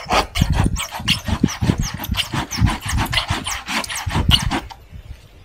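Hand saw cutting through a tree trunk in quick back-and-forth strokes, about three a second, stopping near the end. It is the back cut, made above the notch to leave a hinge of fibre for felling the tree.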